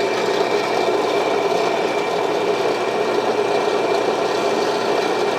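Electric drill running steadily with a steady high whine, its bit cutting a drilled hole wider into an oval.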